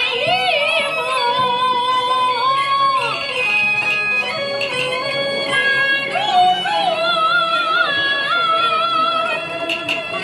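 Peking opera singing: a high voice holding long, wavering notes with vibrato, over instrumental accompaniment.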